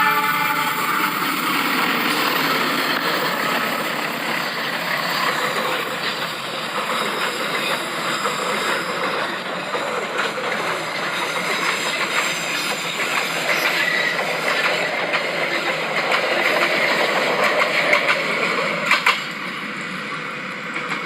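Train running on the rails: a steady rumble and clatter of wheels, with scattered clicks and one sharp knock near the end.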